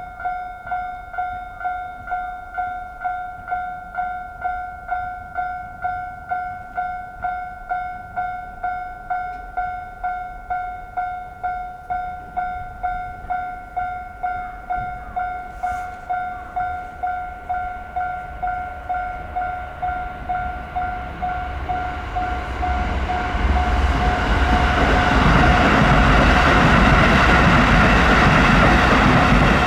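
Japanese railway level-crossing warning bell ringing in an even single-tone rhythm, about one and a half strikes a second. From about two-thirds of the way in, a passing train's rumble and wheel noise builds and grows louder than the bell.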